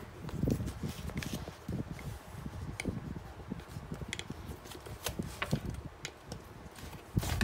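Rustling and soft knocks as a Coach Riley Top Handle 22 handbag in signature chambray is handled, with a few sharp clicks from its gold metal turnlock and a louder knock near the end.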